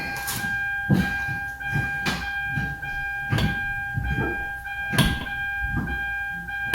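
Brake pedal of a 2013 Kia Soul being pumped, with a few dull thumps about a second apart, right after new rear pads are fitted: the first stroke goes down far before the pedal firms up as the caliper pistons come back against the pads. A steady high electronic tone runs underneath throughout.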